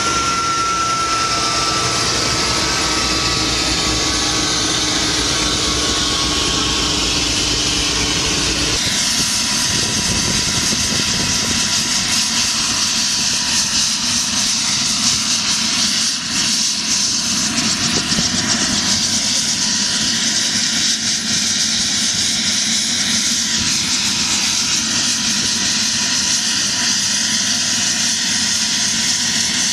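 Tour helicopter's turbine engine and rotor running steadily. About nine seconds in the low rumble drops away and a steady high engine whine comes forward.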